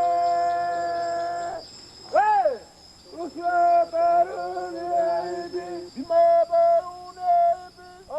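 Asmat villagers chanting to the sago palm's spirit: a long held sung note that breaks off about a second and a half in, a sharp whooping call that rises and falls, then short sung phrases.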